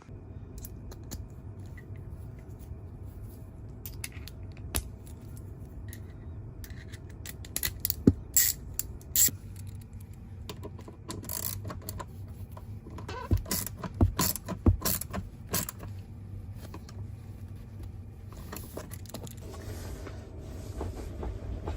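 Tesla car seat squeaking and creaking in short bursts, loudest and most frequent in the middle stretch, over a steady low rumble in the cabin.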